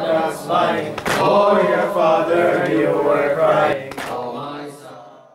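Male voice chanting a Muharram noheh (lament), with two sharp slaps of chest-beating (matam) about three seconds apart; the chant fades out near the end.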